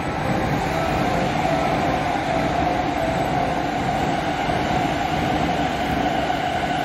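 Keihin-Tohoku Line E233-series electric train pulling out of the station and gathering speed, wheels rolling on long welded rail. It makes a steady running noise with a held tone and higher faint tones over it, the rail-ground sound the rail grinding leaves on long welded track.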